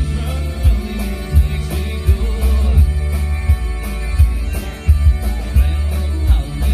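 Live country-rock band playing through a PA system: electric and acoustic guitars over a steady kick drum that hits about every three-quarters of a second.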